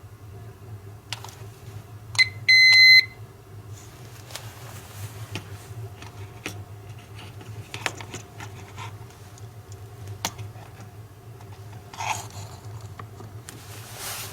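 An electronic beep: a short blip and then a half-second steady tone about two seconds in, among scattered light clicks and handling noises over a steady low hum.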